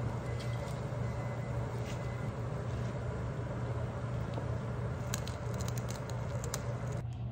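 Water boiling in a stainless steel saucepan over a steady low hum, with a quick run of light clicks about five seconds in as chopsticks knock against the pot while stirring the greens.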